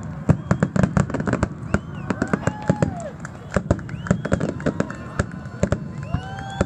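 Aerial fireworks shells bursting in quick succession over the water, a dense run of sharp bangs and crackles.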